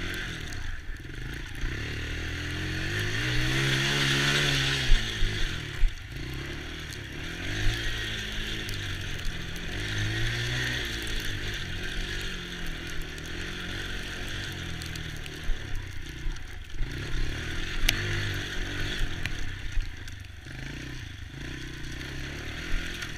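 Small ATV engine running, its pitch rising and falling several times as the throttle is opened and eased off, with scattered knocks and clatter.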